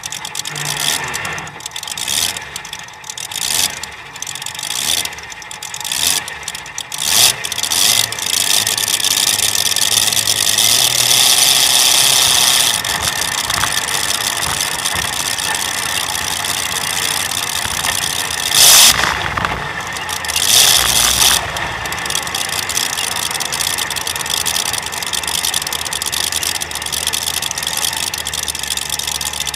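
Pulling tractor's V8 engine with open individual exhaust stacks, heard from on board: it is blipped and revved unevenly for about the first eight seconds, then runs steadily, with two brief louder surges later on.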